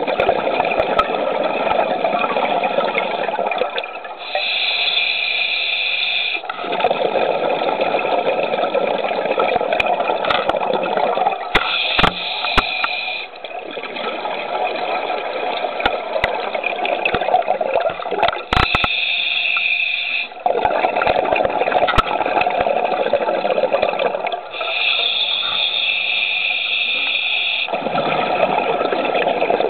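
Scuba diver breathing through a regulator underwater: four inhalations, each a hiss lasting two to three seconds, alternating with longer rushes of bubbling exhaled air of about five seconds each. A few sharp clicks come near the middle.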